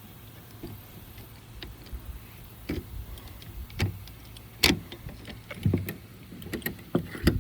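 Irregular knocks and clicks of objects being handled, with a few duller thumps, the sharpest about two-thirds of the way through and near the end.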